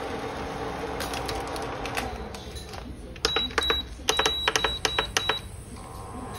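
A PowerPac induction cooker hums steadily under a pot of boiling milk, and the hum cuts out. Then come a run of short, high beeps and sharp clicks from the cooker's touch controls as they are pressed, and the hum starts up again near the end.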